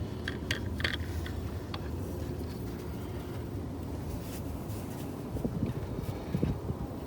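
Light plastic clicks and scrapes as a new cartridge oil filter element is worked into its housing, over a steady low rumble, ending in one sharp snap as the filter seats in place.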